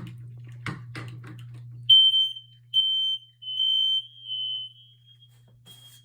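Smoke alarm sounding under test: loud, high-pitched beeps starting about two seconds in, three in a row, then a fainter one near the end.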